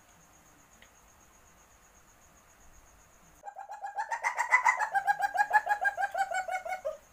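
A civet's mating call, a loud rapid chattering of about eight pitched notes a second. It starts about three and a half seconds in, rises in pitch, then falls and stops shortly before the end.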